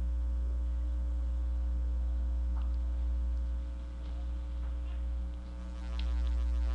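Steady electrical mains hum in the recording, a low buzz with a stack of even overtones, with a few faint ticks.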